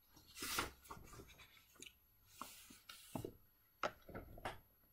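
Faint rustling, then a few soft clicks in the last two seconds.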